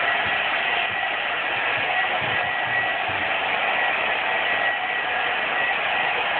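Handheld hair dryer running steadily on high, blowing hot air over a freshly sprayed taillight lens to set the smoke tint coat. It is a steady rush of air with a thin high whine over it.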